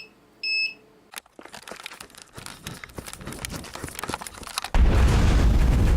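One last beep from the gas alarm, then sharp crackling and popping that grows denser for a few seconds. A sudden loud explosion rumble breaks in about three-quarters of the way through and keeps going.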